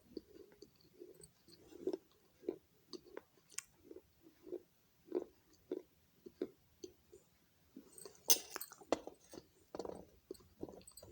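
A person chewing pieces of baked clay pot, about two dull chews a second, with a louder, sharper crunch about eight seconds in.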